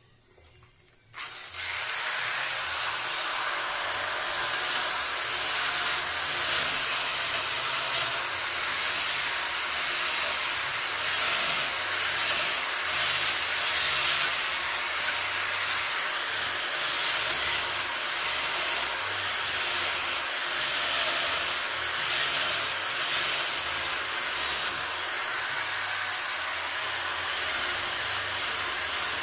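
Power carving tool grinding into the dry deadwood of a loa bonsai trunk, a steady high hiss that starts abruptly about a second in and runs on without pause.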